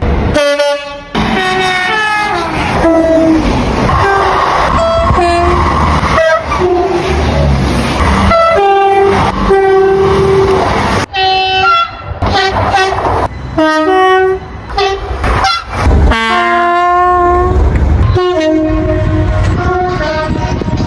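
Train horns from a succession of different trains, sounding short and long blasts, often in two alternating notes, with the rumble of the passing trains beneath. The sound cuts abruptly from one horn to the next every few seconds.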